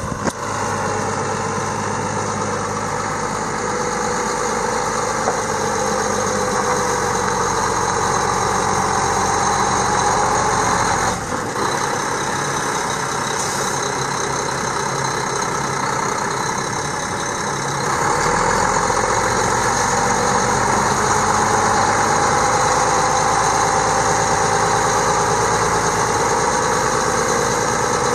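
Mack 12.0-litre inline-six diesel engine of a semi truck idling steadily. Its sound changes about eleven seconds in and again about seven seconds later, getting a little louder.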